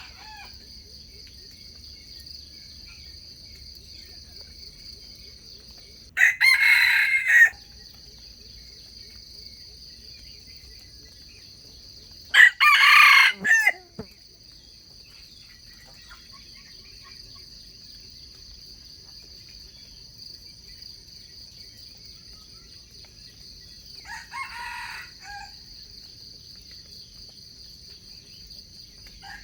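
Wild junglefowl roosters crowing: two loud crows about six and twelve seconds in, each about a second and a half long, then a fainter crow near the end. A steady high insect drone runs underneath.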